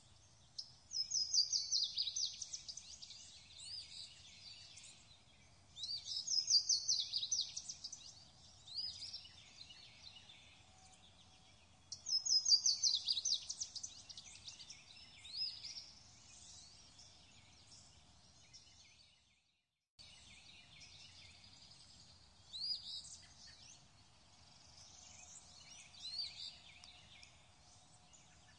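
Birdsong ambience: small birds chirping and whistling, with a loud, rapid trill three times about five to six seconds apart, then softer scattered chirps. The sound cuts out for about half a second past the middle, then resumes.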